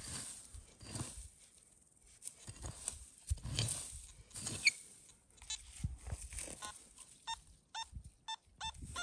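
A small pick-digger chopping into dry soil, several strikes. From just past halfway, a string of short beeps from a Nokta Makro Simplex metal detector as its coil is swept over the hole, signalling a metal target still in the ground.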